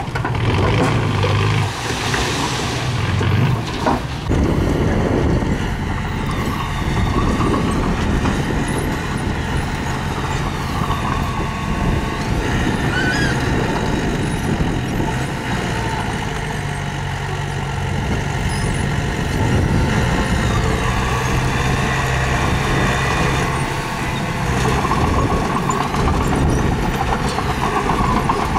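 Diesel engine of heavy earthmoving machinery running steadily under load, with a brief hiss about two seconds in and a single sharp knock shortly after.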